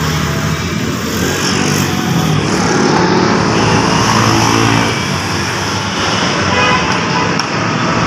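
A motor vehicle's engine running steadily, growing louder between about two and five seconds in and then easing off.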